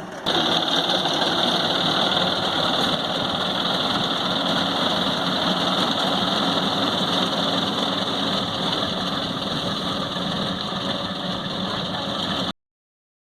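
Corn harvesting machine and its tractor engine running steadily, with a constant high hiss over the engine noise. The sound cuts off suddenly near the end.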